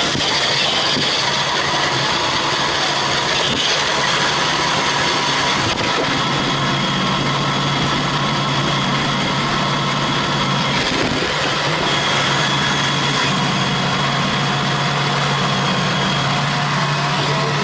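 An engine running steadily under a constant rushing noise, with a low hum that grows stronger about a third of the way in.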